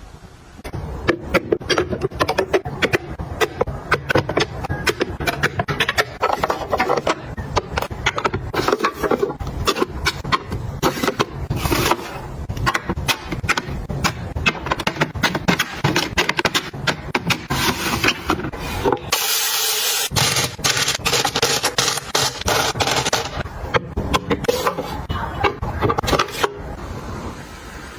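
Objects being handled and arranged: a dense run of clicks, knocks and scraping, with a short hiss about nineteen seconds in.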